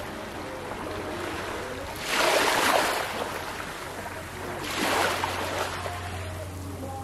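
Small, gentle sea waves lapping onto a coral-rubble shore. Two washes swell up and fade, one about two seconds in and another near five seconds.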